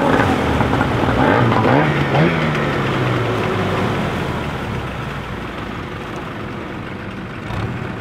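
Small fishing boat's motor running, revving up about two seconds in and then easing back as the sound gradually fades.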